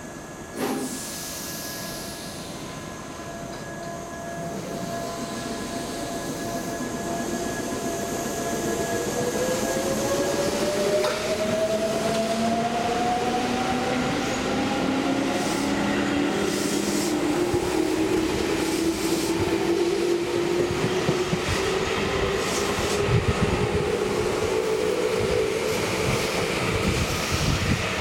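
Tobu 8000-series electric commuter train pulling away: a short sharp burst of hiss about a second in, then the motor whine rises steadily in pitch as the train accelerates. The cars rumble and clack over the rail joints, growing louder as they pass.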